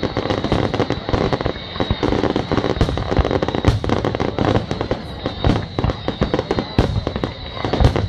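Fireworks display: a dense, rapid barrage of bangs and crackling pops going off several times a second without a break.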